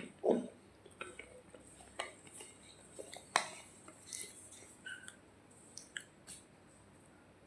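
Crisp, separate cracks and crackles of a dry clay 'roti' being crunched, roughly one a second, fading out over the last second or so.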